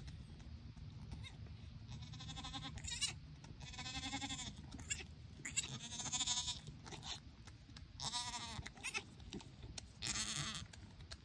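Dairy goat bleating, about five calls a second or so long, one every couple of seconds starting about two seconds in.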